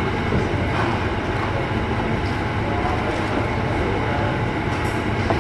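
Steady, fairly loud rumbling background noise with no clear pattern, heaviest in the low range, and a short sharp click near the end.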